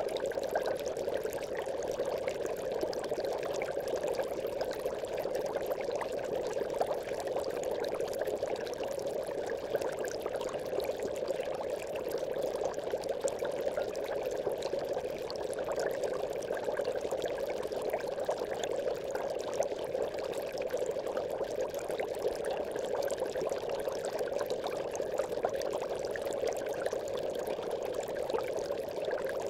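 Aquarium bubbles rising through the water, a steady, continuous bubbling made of many small pops.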